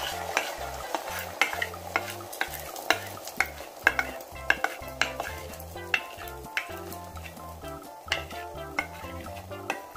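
Beaten egg mixture sizzling in a very hot oiled pan, with repeated sharp clicks and scrapes of a wooden spatula against a glass bowl as the last of the mixture is scraped out. Soft background music runs underneath.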